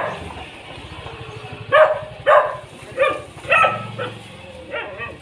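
A dog barking in a series of short, sharp single barks, about six of them, spaced roughly half a second to a second apart.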